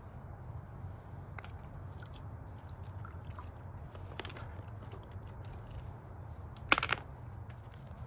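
Rocks being lifted and set down around a buried water-feature basin: scattered small knocks and a sharp clatter of stone about seven seconds in, over a low steady rumble.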